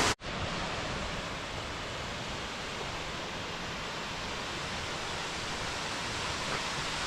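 Steady rushing of falling water from a waterfall, heard after a brief cut-out of sound at the start.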